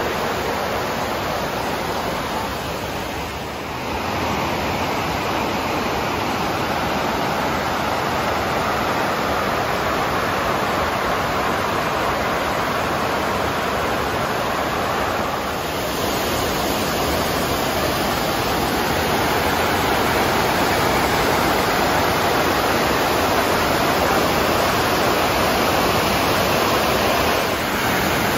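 Rushing white water of river rapids and a wide cascading waterfall: a steady, loud rush of noise that shifts slightly in level a few seconds in and again about halfway.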